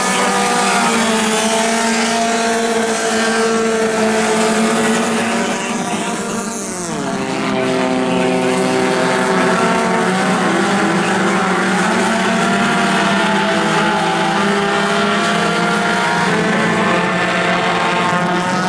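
Several four-cylinder dirt-track race cars running around the oval, their engines overlapping. About six to seven seconds in, one car passes close by with a falling pitch.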